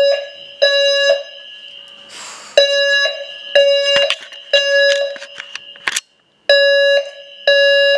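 Building fire alarm sounding a loud, low-pitched beep about once a second, in groups of three with a longer pause between groups.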